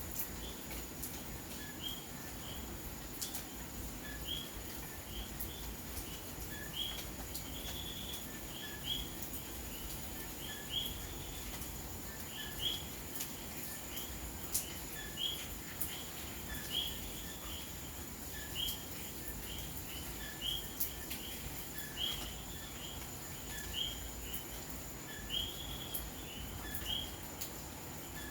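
Puerto Rican coquí frogs calling at night, several overlapping in a chorus of repeated two-note "co-kee" calls, one or two a second. Steady rain runs underneath.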